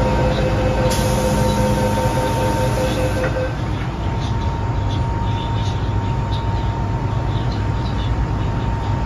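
Door-closing warning tone of an MTR M-Train (Metro-Cammell) sounds for about three and a half seconds, breaking into short beeps near the end, while the doors slide shut with a light knock. The train's steady hum runs underneath.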